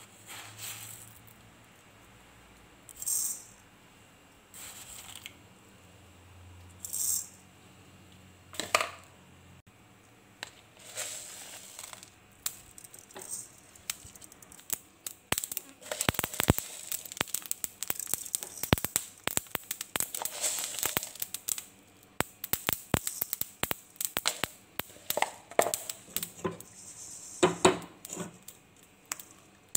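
Small seeds (fenugreek, then mustard) poured onto a dry pan in a few short rattling bursts. About halfway through, a dense crackle of sharp clicks begins as the seeds roast and pop in the hot pan.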